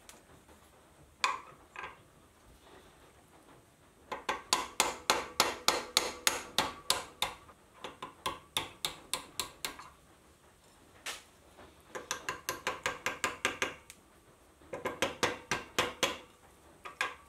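Small hammer tapping out a steel pin from a ratchet screwdriver's ratchet assembly that rests on a hardened steel bench block. The taps are sharp and ringing and come in quick runs of several a second, with short pauses between runs.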